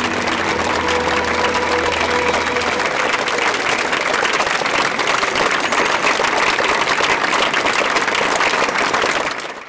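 Audience applauding, with the last held notes of music dying away in the first few seconds; the clapping fades out near the end.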